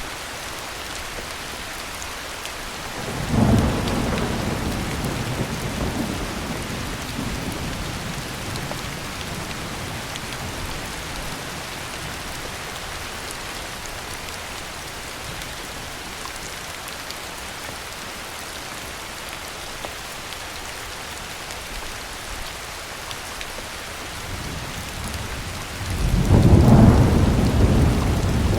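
Heavy rain falling steadily, with two rolls of thunder: one about three seconds in that fades out over several seconds, and a louder one near the end.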